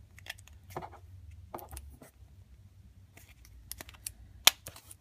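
Small plastic clicks and taps as a chip is pushed into the chip slot of a clear plastic refillable ink cartridge, with one sharp, louder click about four and a half seconds in.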